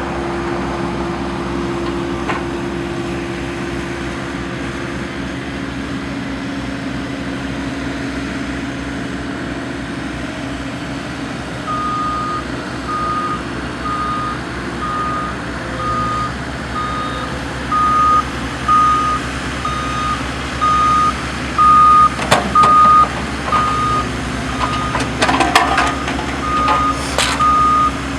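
Skid steer's diesel engine running steadily, its backup alarm beeping at an even pace from a little under halfway in. There are a few sharp knocks near the end.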